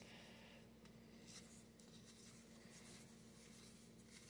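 Faint rustle of trading cards sliding against one another as a stack is thumbed through by hand, heard over a low steady hum.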